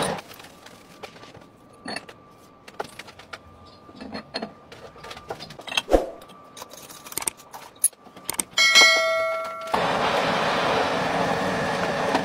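Steel parts being handled on a lathe, clinking and knocking, with a sharp knock about six seconds in and a loud metal clang that rings for about a second. From about ten seconds in, the metal lathe runs steadily again.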